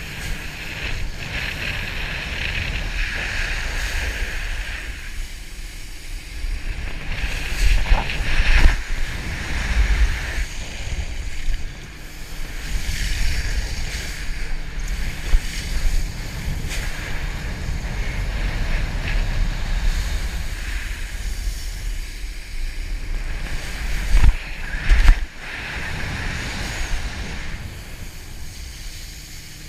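Wakeboard skimming across the water with rushing spray, under steady wind buffeting the action camera's microphone. Louder surges of splashing and thumping come about 8 seconds in and again near 25 seconds, as the board cuts through the wake.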